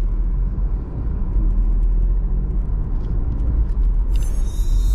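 Car driving along a city street, heard inside the cabin as a steady low rumble of engine and tyres on the road.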